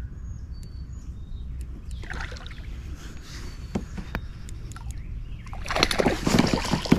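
A hooked bass thrashing and splashing at the surface close to a kayak, a loud burst of splashing in the last second or so. Before it there are faint water sounds and a few short bird chirps.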